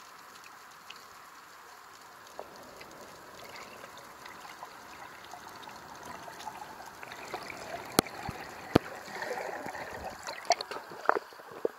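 Water trickling and splashing, growing louder toward the end, with a few sharp clicks in the second half.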